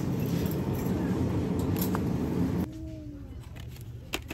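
Steady rumbling grocery-store noise, the sound of handling groceries on the move, that cuts off abruptly about two-thirds through. Quieter store background follows, with a faint falling squeak and a single sharp click near the end as a candle package is taken from its peg.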